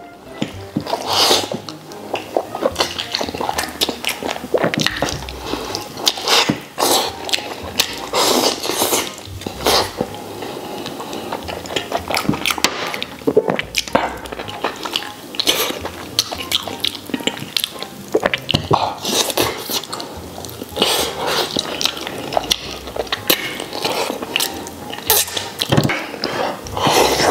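Close-up wet chewing, lip smacking and sucking as braised pig tail is eaten off the bone with rice, in a steady run of irregular smacks and slurps.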